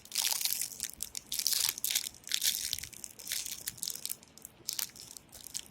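Plastic packaging crinkling and rustling as the phone's accessories are handled, in irregular crackles that are busiest in the first half and thin out later.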